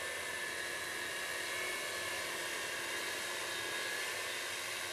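Tarot X6 hexacopter with 18-inch propellers in flight, its motors and props giving a steady drone with a faint high whine that wavers slightly in pitch.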